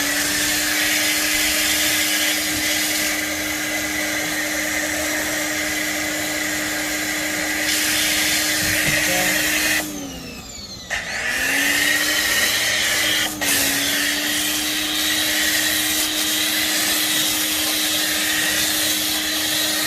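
Hyper Tough 1800 psi electric pressure washer running and spraying water: the motor and pump spin up with a steady hum over the hiss of the spray. About ten seconds in it winds down as the trigger is let go, then starts up again a second later and runs on.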